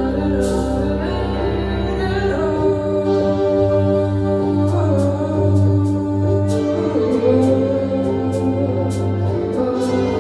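Live ambient jam music: layered sustained drone tones over a low hum, with a few slowly gliding higher lines and short high percussive ticks scattered through.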